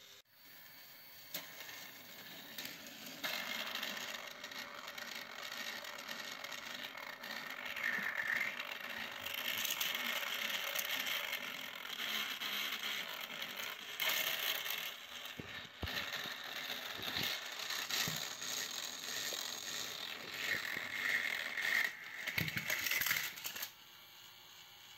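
Battery-powered plastic toy trains running on plastic track, their small motors and gearboxes whirring and rattling, with scattered clicks and knocks. The sound cuts off suddenly near the end.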